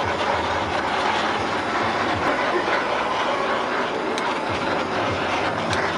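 Handheld butane blowtorch flame hissing steadily as it chars the sweet-sauce glaze on chicken skewers (dak-kkochi).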